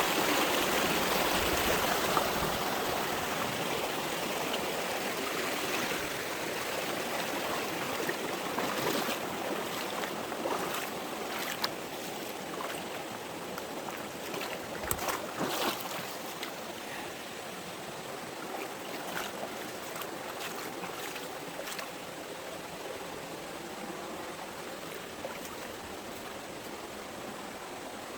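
Mountain stream running over rocks, a steady rush of water that grows gradually quieter, with a few short clicks or splashes about halfway through.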